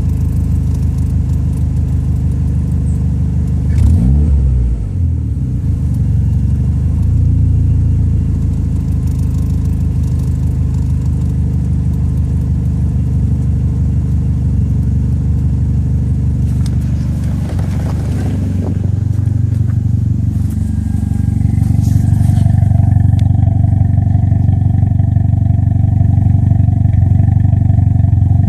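Toyota Celica ST205's 3S-GTE turbocharged four-cylinder engine running with a misfire. There is a brief change in revs about four seconds in, and the note steadies slightly louder over the last several seconds.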